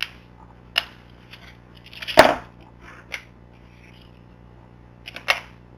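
A handful of sharp clicks and knocks from small objects being handled and set down. The loudest is a short cluster a little over two seconds in.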